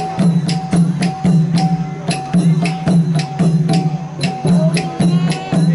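Live traditional percussion music for a dance: drums and a gong keep a steady beat of about three strikes a second, with bright metallic clashes on the strokes.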